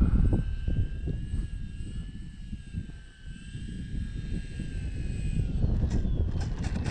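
Electric motor and propeller of an Arrows Bigfoot RC plane whining in flight, the pitch wavering slightly, over heavy wind rumble on the microphone. Near the end the whine fades and slides lower.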